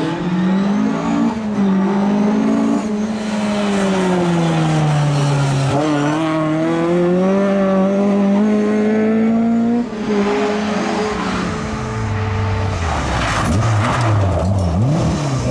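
Rear-wheel-drive Ford Escort rally car engine running hard, its note dropping and then climbing steadily. The note breaks off briefly about ten seconds in, as at a lift or gear change, then picks up again lower and more uneven.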